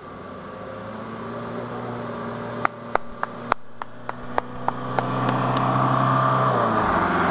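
An off-road 4x4 SUV's engine running as the vehicle drives up and passes close by on a dirt track, growing steadily louder. A quick string of sharp clicks and snaps comes about three to four and a half seconds in.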